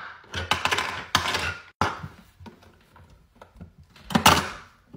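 Wooden toy drink dispenser worked with a plastic cup: a second or so of clattering and rubbing, then scattered light clicks and knocks, and one loud knock about four seconds in.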